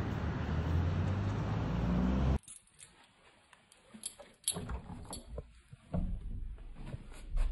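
Steady outdoor street noise, traffic and wind on the microphone, that cuts off about two seconds in. Then quiet, with a few short metallic jingles and clicks at a door.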